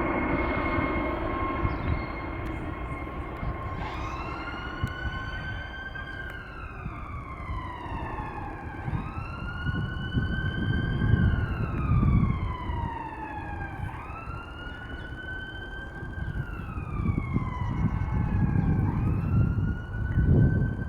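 Emergency vehicle siren in a wail pattern, starting about four seconds in. Each cycle rises quickly and falls slowly, repeating about every five seconds over a steady low rumble.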